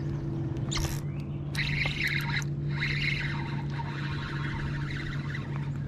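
A fishing reel being cranked with a fluttering whir as a hooked bass is reeled in on a bent rod, with a brief sharp sound about a second in, over a steady low hum.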